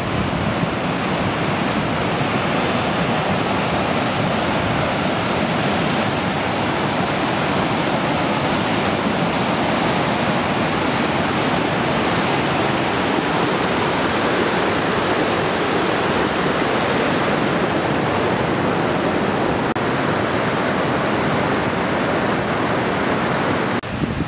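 Mountain torrent rushing steadily and loudly close by, an even wash of water noise. It drops away abruptly near the end.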